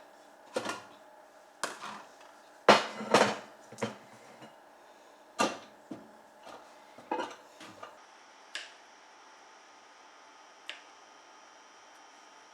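Kitchen handling sounds: a covered bowl of dough set into a microwave and its door worked, heard as a run of sharp knocks and clunks over the first eight seconds, the loudest about three seconds in. After that only a faint steady high tone remains, with two soft clicks.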